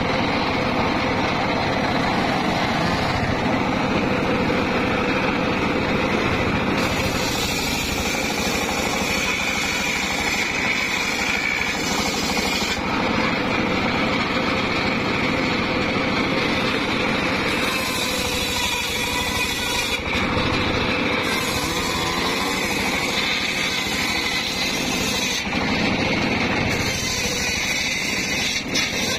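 Homemade engine-driven circular sawmill running steadily, its large blade ripping mahogany logs. A harsher high hiss comes and goes several times as wood is fed through the blade.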